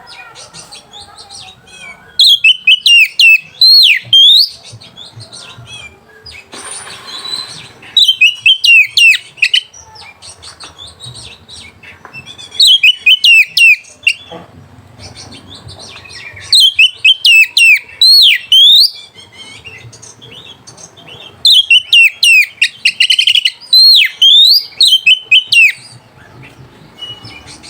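Oriental magpie-robin (kacer) singing its full, loud song in about five bursts of rapid whistled phrases with sharp up-and-down glides, a second or two of pause between bursts. It is the lively, aggressive song of an aroused male, the kind used as a lure to provoke rival birds.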